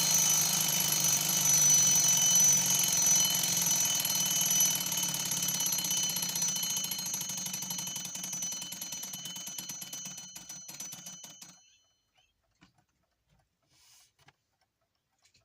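Soviet Yantar mechanical alarm clock's bell ringing continuously, loud at first, then fading as its alarm spring runs down and stopping about eleven seconds in. Faint clicks follow in near silence.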